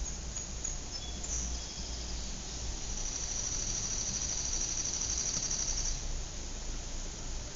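Suburban outdoor ambience: a steady low background hum and hiss, with a few short high chirps in the first second or so, then a high, rapidly pulsing trill lasting about three seconds.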